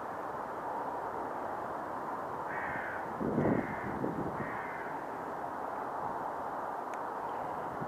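A crow cawing three times in quick succession about two and a half seconds in, over a steady background rush, with a brief low thump during the second caw.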